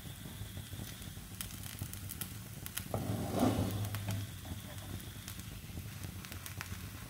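Sweet cheela batter frying in desi ghee in a nonstick pan, sizzling with scattered fine crackles over a steady low hum. About three seconds in, a spatula scrapes under the pancake's edge for about a second, the loudest sound here.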